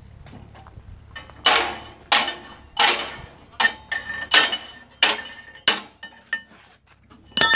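Hammer striking steel at the end plate of a prestressing bed for concrete fence posts: about nine sharp metal-on-metal blows, roughly one every two-thirds of a second, each with a short ring.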